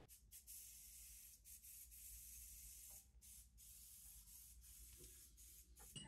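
Near silence: only a faint high hiss, broken by a few brief dropouts.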